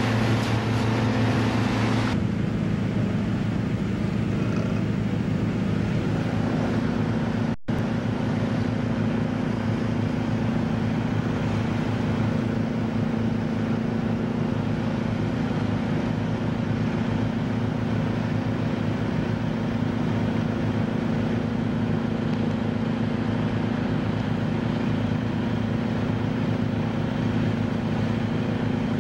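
A boat's engine running with a steady drone at constant speed. A hiss of rushing water and wind fills the first two seconds and then stops. The sound drops out briefly about eight seconds in.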